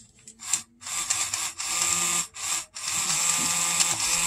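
The small electric motor and drive of a Franklin Mint HO-scale NYC Hudson locomotive, spinning its wheels under power from hand-held test leads. It starts and stops a few times, then runs steadily with a high whine, as the freshly straightened wheels are tested.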